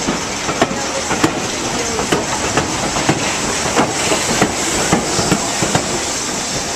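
Class 03 diesel shunter's Gardner engine running as the locomotive rolls slowly along the track, with irregular sharp knocks and clanks about every half second over a steady mechanical noise.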